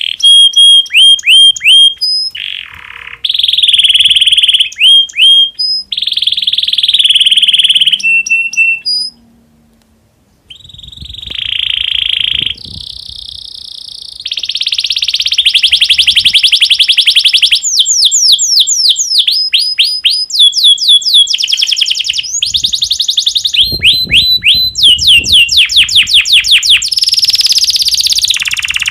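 Domestic canary in breeding condition singing loudly: long runs of rapid trills and quickly repeated high, down-slurred notes, with a short pause about ten seconds in.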